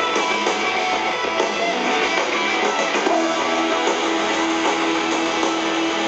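Live rock band playing loud, electric guitars to the fore, heard from the crowd with thin bass; a long held note comes in about halfway through.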